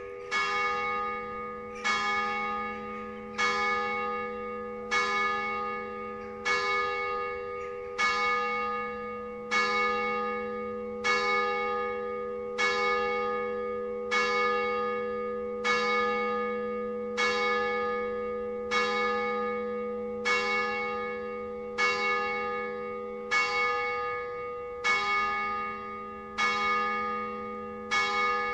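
The basilica's second church bell, electrified, tolled in single strokes with the bell hanging still rather than swinging. It sounds about once every second and a half, and each stroke rings on into the next. This is the 10:15 call to the 10:30 Sunday Mass.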